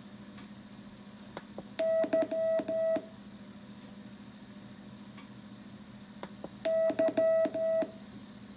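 Morse code practice tone: the letter Y (dash dot dash dash) keyed twice as a single steady beep, about five seconds apart, over a faint steady hum.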